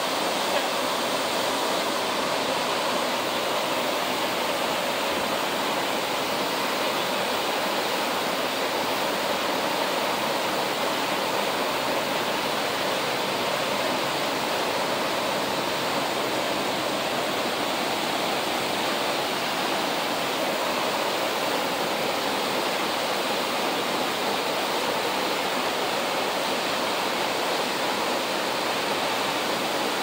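Horsetail Falls, a tall ribbon waterfall, pouring into its plunge pool: a steady, unbroken rush of falling water.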